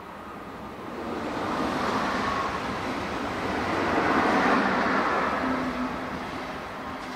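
A vehicle passing by: a rushing noise that swells, peaks about four seconds in, and fades away.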